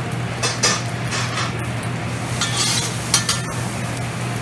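Metal spatulas scraping and clinking on a flat-top griddle as a cook works a pile of noodles, with a handful of sharp strokes, the loudest about three seconds in. Food sizzles on the griddle over a steady low hum.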